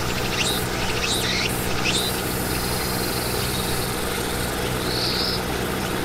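Insects calling outdoors: a quick run of high, sweeping calls, a couple a second, in the first two seconds, and one short high call about five seconds in, over a steady low hum.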